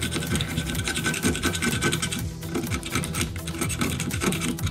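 Utility-knife blade scraping the crumbled foam surround and leftover glue off the rim of a loudspeaker's frame: quick, irregular scratching strokes with a short pause about two seconds in.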